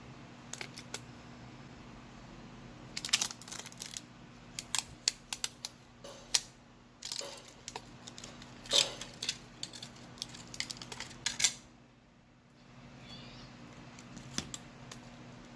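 Irregular small clicks, taps and short scrapes from handling a cellphone and small repair parts or tools during an LCD screen replacement. They are busiest in the middle and ease off near the end, over a steady low hum.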